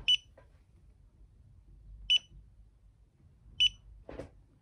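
Three short, high-pitched electronic beeps, the second about two seconds after the first and the third a second and a half later, with a faint brief rustle near the end.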